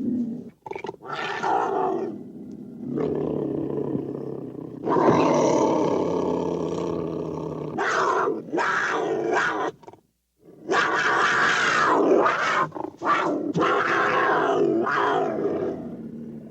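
Vintage cougar sound effect: a series of harsh, rough big-cat roars and growls, one after another with brief pauses, the longest and loudest about five seconds in.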